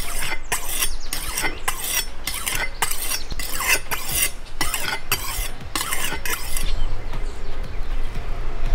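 Chef's knife blade drawn across a round abrasive sharpening stone: about a dozen scraping strokes, roughly two a second, that stop about two-thirds of the way through.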